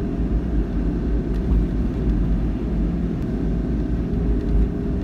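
Steady low rumble of a car's engine and tyres on the road, heard from inside the cabin while driving at a constant speed.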